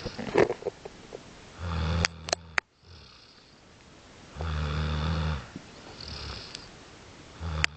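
Loud snoring: two full snores, each about a second long and roughly three seconds apart, with a third beginning near the end. Quieter breathing fills the gaps between them, and the first snore ends in a few sharp clicks.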